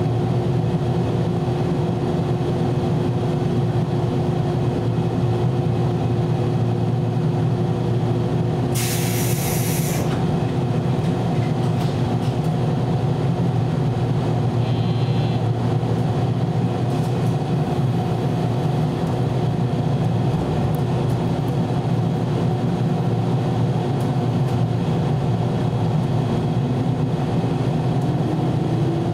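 A 413-series AC/DC electric multiple unit heard from inside its front motor car: a steady hum and rumble. A brief hiss comes about a third of the way in, and a whine rises in pitch near the end.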